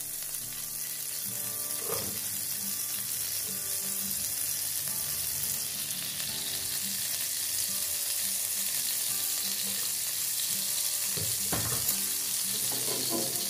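Cooking oil and a lump of margarine sizzling in a hot wok, a steady frying hiss, with a few light knocks.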